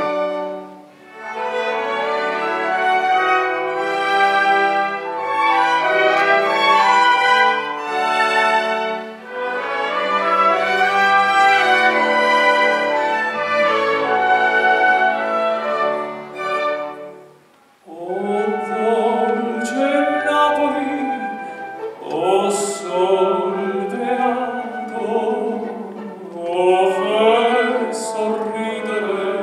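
Orchestra strings play a slow melody. About two-thirds of the way through there is a brief dip, and then a man's operatic voice comes in, singing with vibrato over the orchestra.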